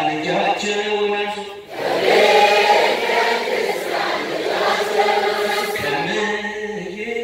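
Call-and-response Ethiopian Orthodox hymn (mezmur) sung in Amharic: a man's voice leads a line through a microphone, and about two seconds in a large crowd sings the response together, louder, before his lead voice returns near the end.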